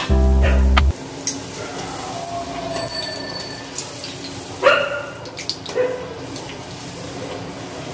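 A short burst of sound-effect music in the first second, then hot oil crackling softly in a steel kadai as palm-fruit pithe are lowered in with a slotted metal spoon on low heat. The spoon rings against the pan about five seconds in.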